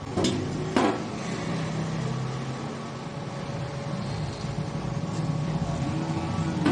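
Stick (arc) welding: the electrode is tapped twice in the first second to strike the arc, then the arc burns steadily with a low buzz.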